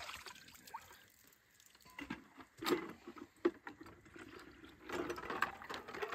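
Water splashing and sloshing as a wash bucket is dipped and filled, with a few hollow knocks from the bucket. The splashing grows busier near the end.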